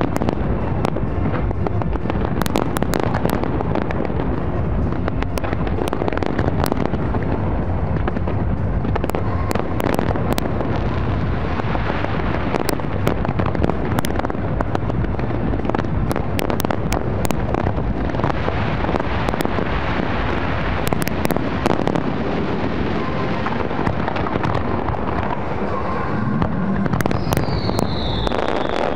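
Large fireworks display at full barrage: a dense, continuous rumble of shell bursts with many sharp crackles. Two falling whistles come near the end.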